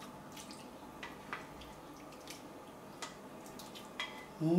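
Thick minced-meat and tomato sauce being scraped with a spatula out of a stainless steel frying pan onto pasta: soft wet sounds with a few light clicks of the spatula against the pan.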